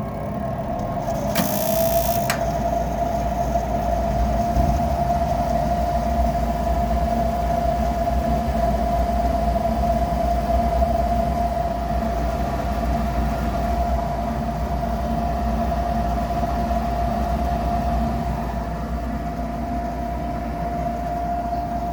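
Furnace's Fasco draft inducer motor spinning up, its whine rising in pitch over about two seconds, then running at a steady pitch with a low rumble under it. It sounds rough, which the owner puts down to its sealed ball bearings probably going out. A short hiss comes about a second and a half in.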